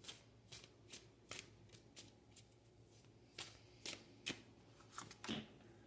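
A tarot deck being shuffled and handled by hand: faint, irregular flicks and taps of cards, with a few louder snaps a little past the middle.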